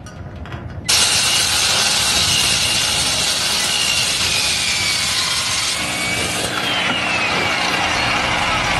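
Horror-film sound effect: a loud rushing hiss starts suddenly about a second in, with faint falling whistling tones over it and a low hum joining near the end.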